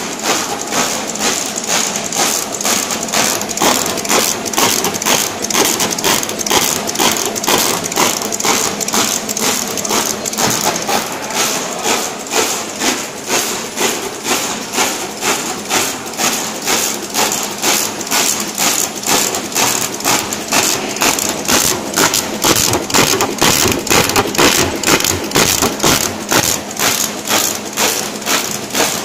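YH-210C four-colour label printer with die-cutting and laminating stations running: a fast, even rhythm of mechanical strokes over a steady hiss, the machine cycling continuously.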